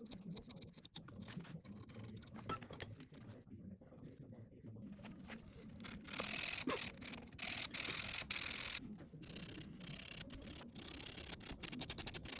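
Hand work on a small piece of wood: quick rubbing and scraping strokes with light clicks, getting denser and louder about halfway through.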